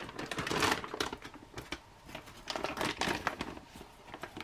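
Ration packaging crinkling and rustling in irregular spurts as the heated meal pouch is pulled out of its flameless heater bag and handled. The handling is busiest in the first second and again around three seconds in.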